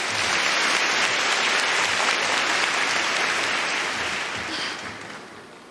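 Audience applauding, steady for about four seconds, then fading out near the end.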